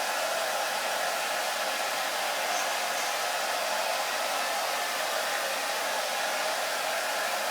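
Hair dryer running steadily, an even rushing hiss that holds the same level throughout.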